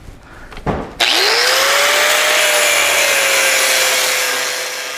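Electric angle grinder with a cut-off wheel switched on about a second in, its whine rising as the wheel spins up, then cutting into the steel frame rail of a 1968 Chevy pickup with a steady hiss and the motor tone holding. The sound slowly grows quieter near the end.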